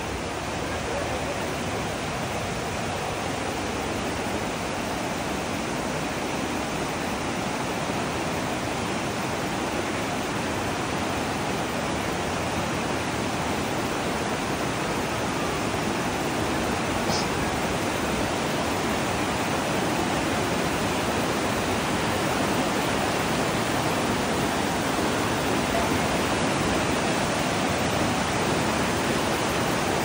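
Rushing water of a rocky stream tumbling over boulders, a steady even rush that grows gradually louder.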